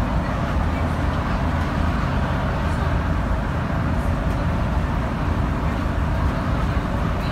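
Thomas school bus engine and road noise heard inside the cab, a steady, loud drone as the bus accelerates at highway speed.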